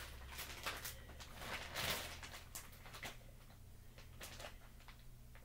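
Large plastic bag of shredded cheese crinkling as it is handled, in several short rustling bursts over the first few seconds, loudest about two seconds in, then quieter.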